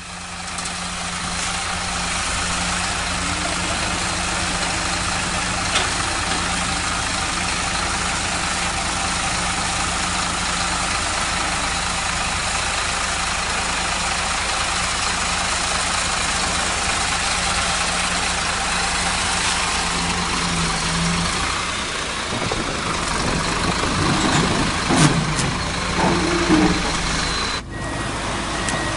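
Heavy truck diesel engine running steadily while the truck's hydraulic outrigger legs lift its front end. Its steady note changes about two-thirds of the way through, and a few short, louder sounds come near the end.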